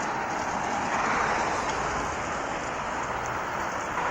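Steady city street traffic noise, a hiss of passing vehicles and tyres with a low rumble, swelling a little about a second in.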